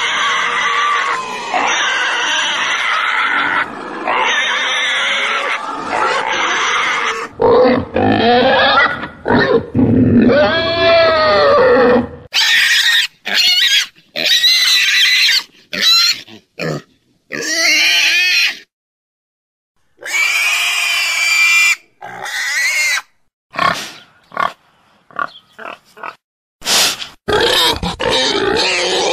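Pigs calling: a string of short, separately recorded pig calls, some high-pitched and rising and falling in pitch. They are cut together with abrupt starts and stops, with a second of silence about two-thirds of the way through.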